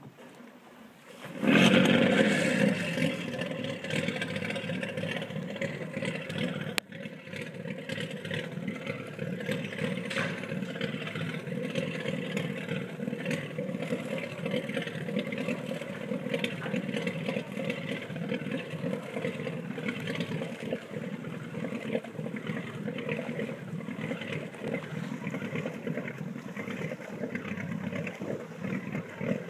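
A boat engine starts suddenly about one and a half seconds in and then runs steadily with a low rumble. A single sharp click sounds about seven seconds in.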